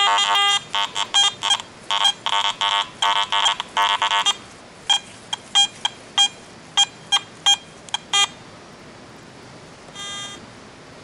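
Metal detector signal tones on a target: a dense run of steady-pitched electronic beeps, then single short chirps spaced a fraction of a second apart, stopping about eight seconds in, with one more short beep near the end.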